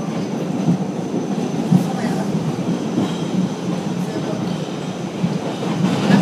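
Steady running noise of a New York City subway car, heard from inside the car, with faint voices under it.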